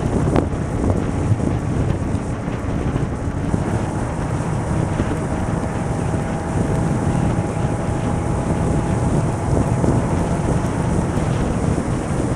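Wind rushing over the microphone of a Honda CBR600RR sportbike riding at motorway speed in rain, a loud steady noise, with the inline-four engine's faint whine under it in the middle.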